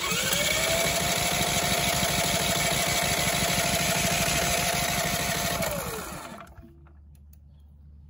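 Onan P4500i generator engine being spun by its starter with the spark plug out of the head, a spark test. There is a fast, even churning with a whine that spins up at the start, holds steady, and winds down as cranking stops about six seconds in.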